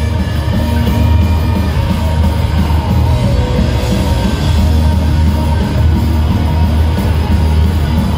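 Heavy metal band playing live through a festival PA: distorted electric guitars, bass and drums in a loud, driving black-tinged rock and roll.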